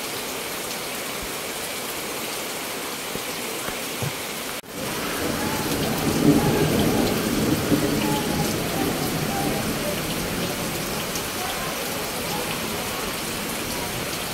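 Steady monsoon rain falling. After a brief break a little over four seconds in, the sound comes back louder with a low rumble that swells and then eases back to the even hiss of the rain.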